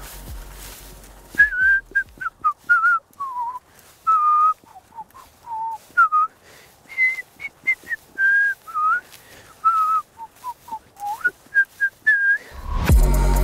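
A person whistling a tune in a run of short, clear notes, some sliding up or down. Near the end, music with a beat comes in.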